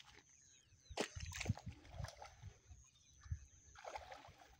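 Faint splashing of a hooked catfish thrashing at the water's surface while it is played on rod and reel, with a sharp knock about a second in.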